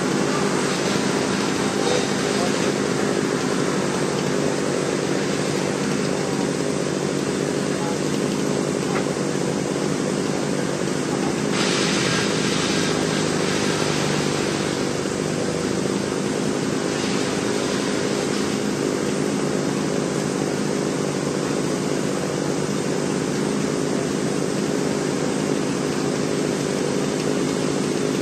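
A small engine running steadily at a constant speed, with no revving.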